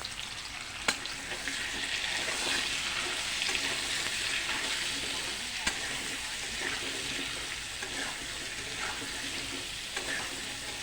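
Potato and papaya pieces frying in hot mustard oil, a steady sizzle, with a spatula stirring them and a few sharp taps against the pan, the clearest about a second in.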